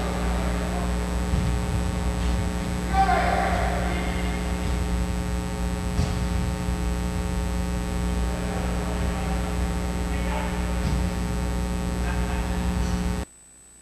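Steady electrical mains hum, with faint arena sound under it: a brief louder sound about three seconds in and a sharp knock about six seconds in. The sound drops out abruptly near the end.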